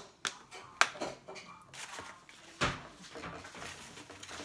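Handling noise from an empty plastic water bottle with sticks through it: light clicks and taps in the first second and a half, then a single louder knock about two and a half seconds in as it is set on the wooden table.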